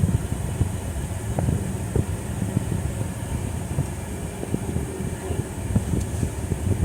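Road and engine noise inside a car's cabin while driving: a steady low rumble with a few faint knocks.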